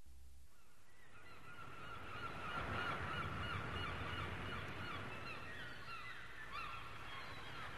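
A flock of birds calling, many short calls overlapping thickly; the chorus builds up over the first couple of seconds and carries on throughout.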